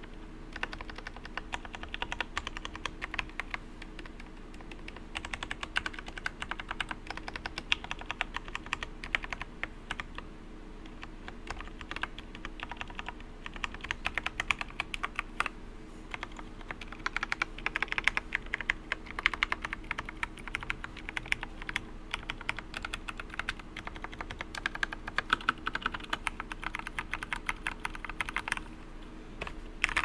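Discipline 65 mechanical keyboard in a wooden case, fitted with 67 g T1 tactile switches, being typed on: a dense run of individual keystroke clacks, including spacebar and modifier presses, with a few brief pauses.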